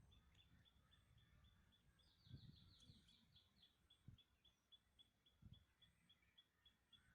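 Faint bird chirping outdoors: a short high note repeated about four times a second, with a quicker trill about two seconds in. A few soft low thumps fall under it.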